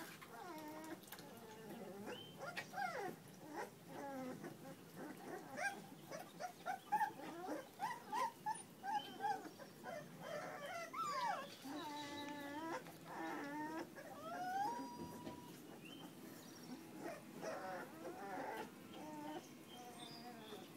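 Young puppies whimpering and yipping: a string of short whines that glide up and down in pitch, one after another.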